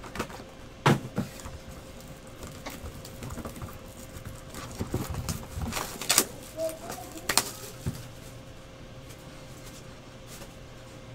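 Cardboard trading-card boxes being handled on a tabletop: irregular taps, scrapes and knocks as they are picked up, turned and set down, with sharper knocks about a second in and around six and seven seconds. A faint steady hum runs underneath.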